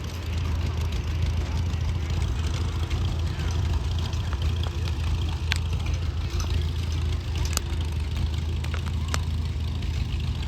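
An engine idling steadily with a low, even hum, with a few sharp clicks over it partway through.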